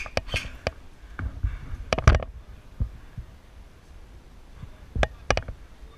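Lancer Tactical LT-15 airsoft electric rifle firing single shots: a handful of short, sharp clacks spaced irregularly, with a close pair about two seconds in and another about five seconds in.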